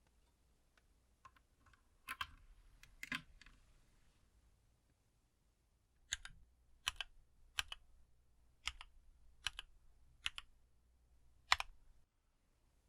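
Mechanical keyboard with Gateron Black switches, the Keydous NJ68, with keys pressed one at a time. A couple of clacks come around two to three seconds in, then eight single keystrokes evenly spaced, under a second apart.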